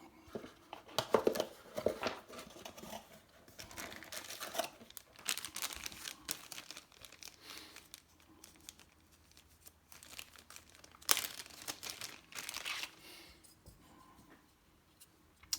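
Packaging rustling and crinkling in irregular bursts as a part is unwrapped and taken out of its box, with scraping and tearing sounds.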